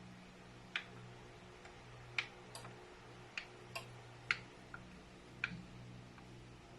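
Quiet passage: about a dozen short, sharp clicks at irregular intervals, some in close pairs, over a faint steady low hum.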